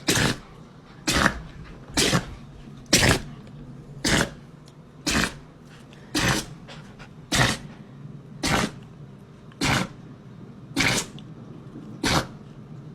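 A dog sneezing over and over in a sneezing fit: about a dozen short, sharp sneezes, evenly spaced about one a second, without a break.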